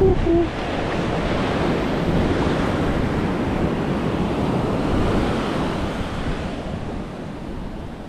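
Atlantic surf washing up over the sand at the water's edge: a steady rush of foaming water, with wind buffeting the microphone. It eases a little near the end.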